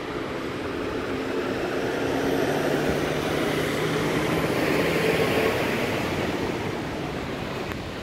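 Road traffic: a motor vehicle's engine hums with steady tones under a constant hiss, growing louder through the middle and easing off near the end as it passes.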